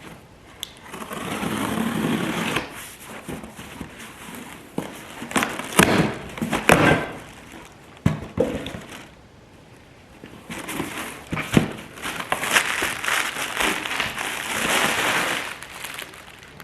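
A parts package being opened and unpacked: rustling and crinkling of packing material, in two long spells, with a few sharp knocks in the middle.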